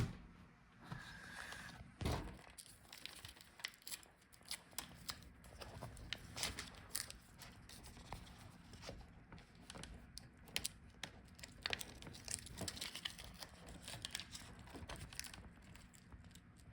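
Faint handling sounds of a laptop LCD panel and its thin video cable being worked into the panel's connector: light crinkling and rustling with many small clicks and taps, and one louder soft knock about two seconds in.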